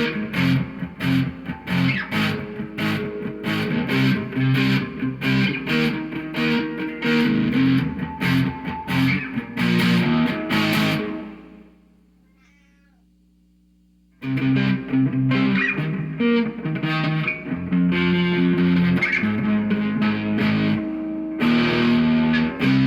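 Electric guitar through a Bad Monkey overdrive pedal into a pair of Fender Twin amps, playing fast rhythmic picked riffs. About halfway through the playing stops and rings out for a couple of seconds, then starts again.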